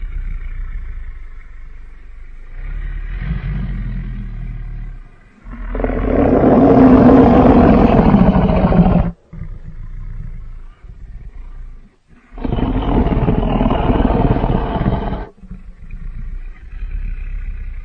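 Sound-designed roars and growls of a fictional hybrid dinosaur, mixed from lion, tiger and other animal recordings: low rumbling growls, a loud roar about six seconds in lasting about three seconds, then a second, slightly quieter roar a few seconds later before the growls return.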